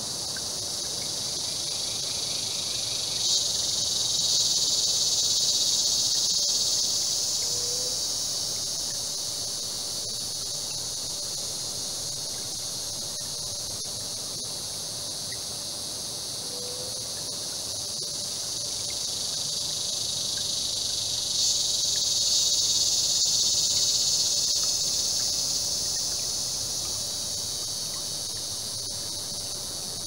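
Rainforest insects droning in a steady high-pitched chorus that swells suddenly twice, about three seconds in and again about twenty-one seconds in, each swell holding for several seconds before easing off. A faint steady lower drone runs underneath, with a few short chirps about eight and seventeen seconds in.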